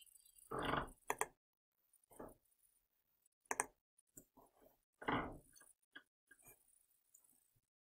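Faint computer mouse clicks, one about a second in and another about three and a half seconds in, with two short, louder rushes of noise, near the start and about five seconds in.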